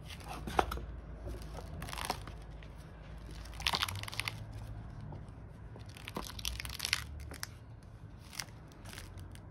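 A new hardcover book being opened and bent back for the first time: its glued spine crackles and the stiff new pages rustle and flick as they are fanned through, in scattered bursts of crackling.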